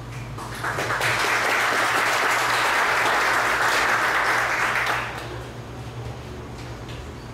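Audience applauding, building quickly and dying away about five seconds in, over a steady low hum.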